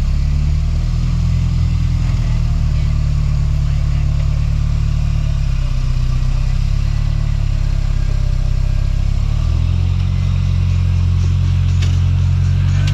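Rock-crawler buggy's engine working under load as the buggy crawls slowly over boulders, steady at low revs, then picking up throttle about ten seconds in.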